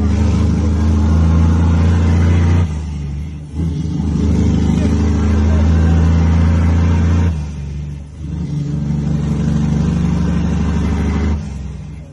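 Cummins ISX inline-six diesel in an International PayStar dump truck pulling through the gears of an 18-speed transmission. There are long pulls under power, each broken by a short dip as it is shifted: about three, seven and a half, and eleven and a half seconds in.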